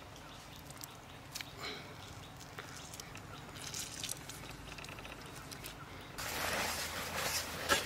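Wet rice-flour and cornflour batter being mixed by hand in a bowl: light wet clicks and drips at first, then from about six seconds in a louder, continuous wet squelching and sloshing.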